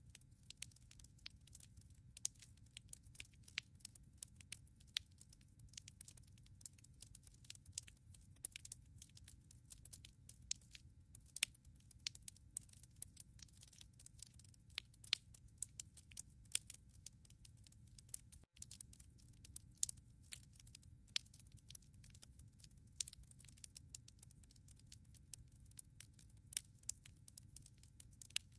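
Wood logs burning in a fireplace: dense, irregular sharp crackles and pops over a soft low rumble, with one brief gap about two-thirds through.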